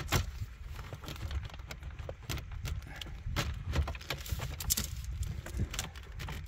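Irregular plastic clicks, taps and rubbing from gloved hands fitting the top LCD clock display back into a Holden Commodore VE dashboard and pressing the trim into place.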